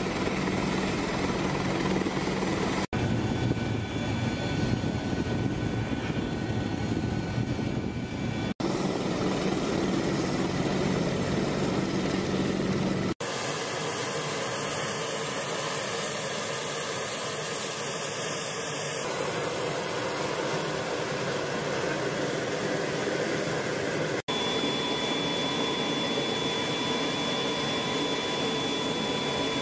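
AH-64 Apache helicopter's twin turbine engines and rotor running steadily, with strong low tones. About 13 seconds in, after a short break, the helicopter sound drops away to a steady rushing noise, joined by a faint high-pitched whine near the end.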